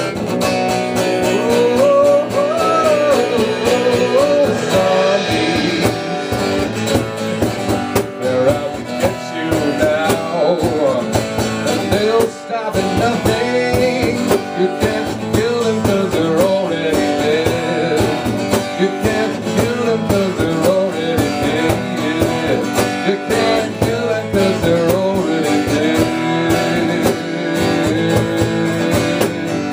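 Live band playing a rock song: strummed guitar over a steady beat, with a lead melody that bends in pitch, in an instrumental stretch without words.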